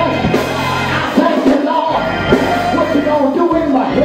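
Live gospel music: an amplified lead voice singing over steady, held low bass notes.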